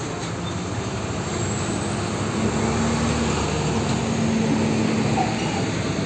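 Hino FL 260 Ti tanker truck's diesel engine running as the truck turns and passes close by. The rumble, mixed with road noise, grows a little louder about two seconds in.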